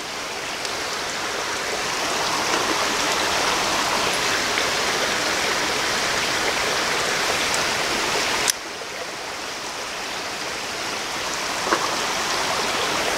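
A small rocky creek running over stones, a steady rushing of water. A single sharp click about eight seconds in, after which the water sound dips and slowly builds back.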